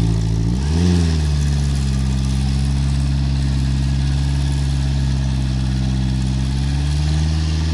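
Suzuki Samurai's four-cylinder engine running at low revs while the jeep is stuck in deep mud, with a brief blip of the throttle about a second in and the revs climbing slightly near the end.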